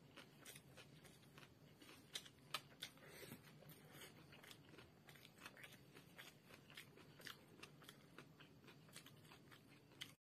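Faint, irregular clicks and crunches of someone eating chicken chow mein by hand: chewing, with fingers picking noodles and raw vegetables off a steel plate. The sound cuts out briefly near the end.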